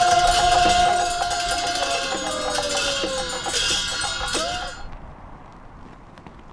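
Tibetan Buddhist ritual music: monks' hand bells and cymbals ringing over a long held tone that ends about two seconds in and is followed by a falling one. It all stops about five seconds in, leaving a much quieter background with a few faint clicks.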